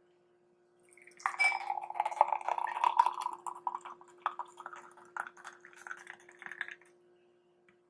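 Glassware and dishes clinking and knocking, with some liquid sounds, starting about a second in and thinning out near the end.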